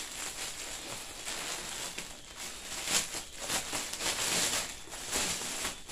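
Clear plastic bag crinkling and rustling as it is pulled open around a plush flower-shaped pillow, in irregular bursts, the loudest about three seconds in.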